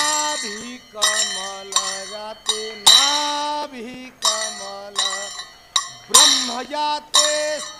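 A temple bell struck at an uneven pace, about once or twice a second, each stroke ringing on. Voices sing a devotional aarti in long held notes underneath.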